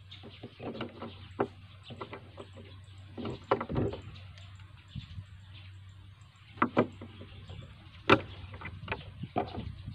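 Small blue plastic trigger parts handled and fitted together on a wooden tabletop: irregular clicks, taps and short scrapes, with one sharp snap a little after eight seconds.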